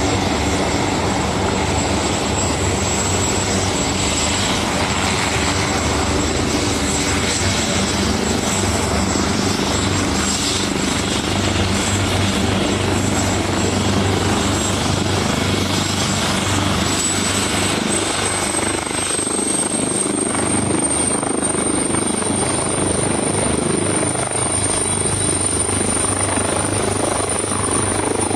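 Helicopter running steadily, with a constant low hum and a thin high whine that rises slightly in pitch about two-thirds of the way through.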